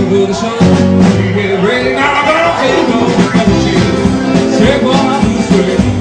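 Live band playing rock music, with singing.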